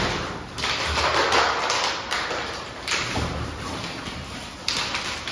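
Crackling, crinkly plastic rustling in three bursts as a Labrador tussles and plays, with a few soft thuds underneath.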